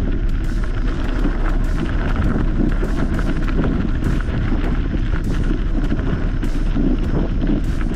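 Off-road vehicle driving over a rough track: steady engine and road noise with frequent short knocks and rattles.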